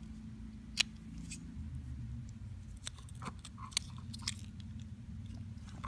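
Scattered small clicks and taps from fingers handling a tiny plastic toy piece and its cardboard box, the sharpest about a second in, over a low rumble of handling noise.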